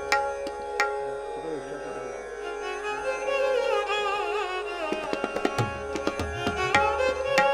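Instrumental passage of Sikh shabad kirtan: tabla keeping a steady rhythm of sharp strokes under bowed stringed instruments holding a sustained, wavering melody.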